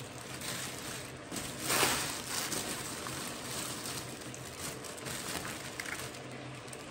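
Clear plastic shopping bag rustling as packets of spices and a bottle are lifted out of it, loudest about two seconds in.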